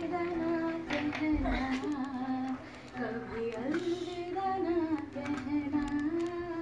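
A woman singing a slow Hindi film song in long held notes, accompanying herself on acoustic guitar.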